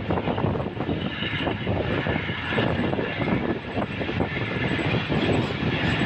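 Passenger coach of a moving train, heard from its open doorway: wheels rattling and knocking over the rails, with a steady rush of air.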